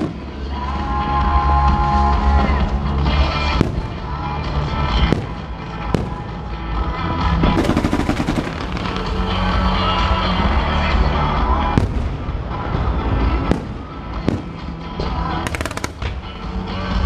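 Fireworks going off: single sharp bangs every second or two, and two runs of rapid crackling, one mid-way and one near the end. Loud music with a steady bass plays throughout.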